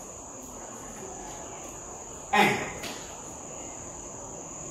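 Quiet classroom background with a steady high-pitched whine. About two seconds in, a man makes one short vocal sound that falls in pitch.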